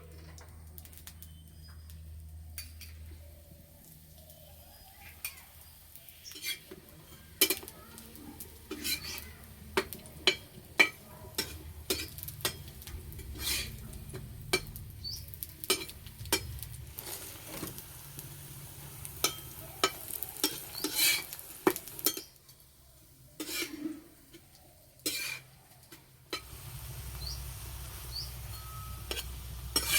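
A metal spatula knocking, clinking and scraping on a hot tawa as layered parathas fry in oil, in irregular strokes with a light sizzle underneath.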